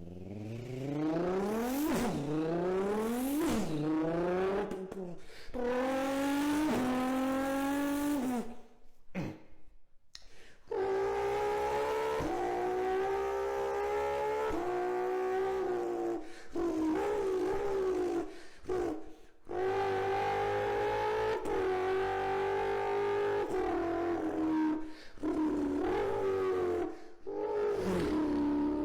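A beatboxer imitating car engines with his voice: a rev that climbs steeply in pitch and drops back at each gear change, then long held engine notes broken by short pauses.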